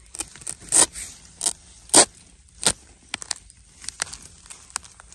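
A heavy metal digging blade chopping into soil and the base of a wild bamboo shoot to cut it free: four hard chops about 0.6 s apart in the first three seconds, then lighter knocks and scraping.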